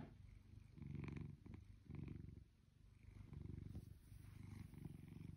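Blue British Shorthair cat purring, a quiet low rumble that swells and fades in waves about once a second with its breathing.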